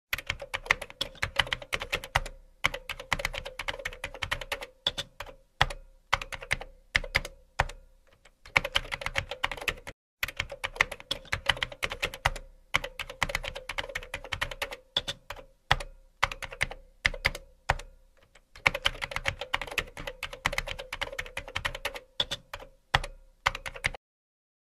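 Keyboard typing sound effect: rapid key clicks in runs of a few seconds, broken by short pauses, that stop just before the end.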